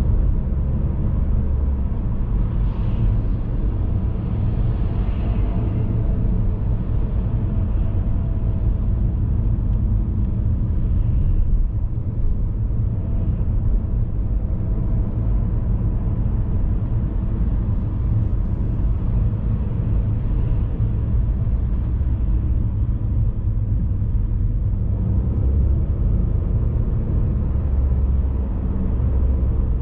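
Steady low rumble of a car driving, road and engine noise holding even throughout.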